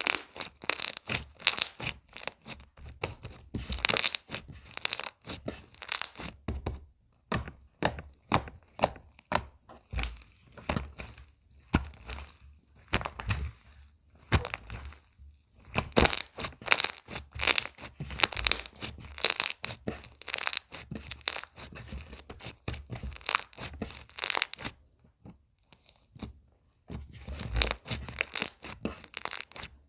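Slime being squeezed, stretched and pressed by hand, giving dense runs of sharp crackling pops and clicks with a few short pauses.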